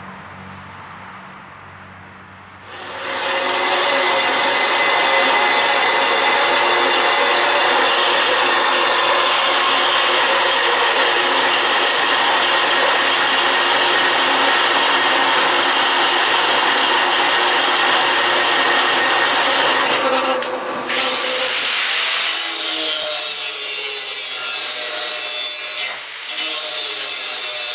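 Power tool cutting metal stock, starting up about three seconds in and running loud and steady, with two short breaks near the end.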